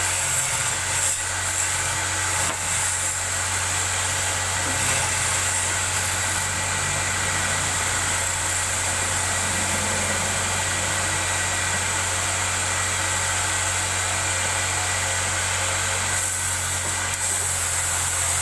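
Wood lathe's motor running steadily with a constant low hum and a high noisy whir over it.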